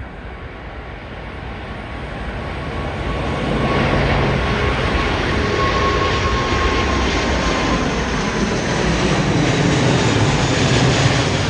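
Jet airliner's engines growing louder over the first few seconds, then holding a loud, steady rush as the plane passes close by, with a faint high whine that drops slightly in pitch.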